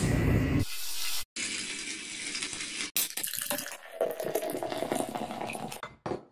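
Cut-together kitchen sounds: a gas stove burner lighting with a brief rush of flame, a steady hiss for about a second and a half, then beer poured from a can into a glass, splashing and gurgling for about three seconds.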